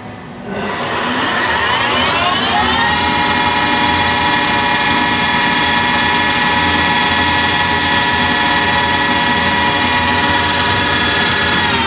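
CNC lathe spindle starting a cycle on a brass primer module. It spins up with a rising whine over about two seconds, then runs at a steady high speed with an even whine.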